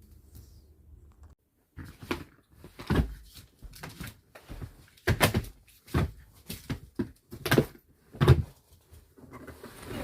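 A run of irregular knocks and thuds, about a dozen, starting about two seconds in, as furniture and household things are handled while a room is cleared out.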